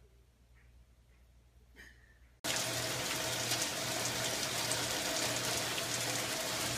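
Near silence, then about two and a half seconds in a loud, steady rush of running water starts abruptly, like a tap or spray running.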